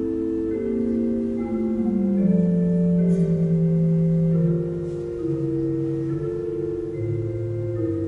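Pipe organ playing slow sustained chords, its held notes changing every second or so over a bass line that steps downward.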